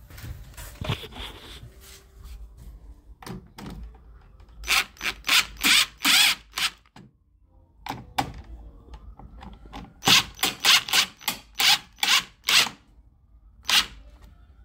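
Cordless driver running in short trigger bursts, driving the mounting screws of a wall switch into its electrical box: a run of about five bursts a little under half a second apart, a pause, then another run of about six and one last burst near the end.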